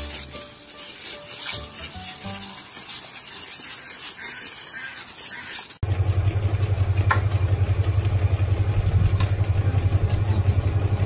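Hissing spray of a jet of water from a garden hose for the first half. After an abrupt cut it gives way to a steady low rumbling hum with a fast, even pulse.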